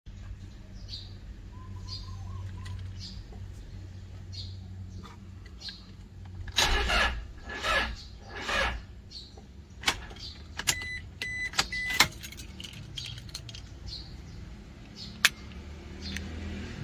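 Toyota Fortuner's starter trying to crank on a failing battery: three short cranking bursts about a second each, then a series of clicks and a few short beeps. The battery no longer has the cranking power to start the engine.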